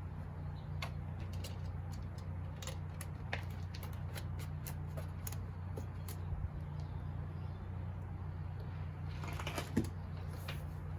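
Scattered faint clicks and light handling noises over a steady low hum.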